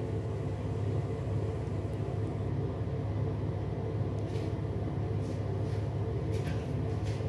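A steady low mechanical hum, like a motor or fan running, with a few faint brief hisses in the second half.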